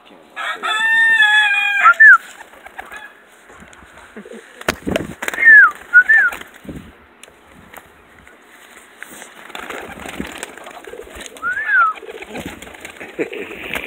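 Domestic pigeons flapping their wings as they fly onto an outstretched hand, with pigeon cooing and a few short, high chirps. A long, loud bird call sounds near the start.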